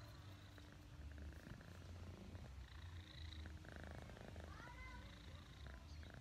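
A tabby kitten purring faintly, close up, while being stroked on the head: a low purr that swells and fades in long pulses.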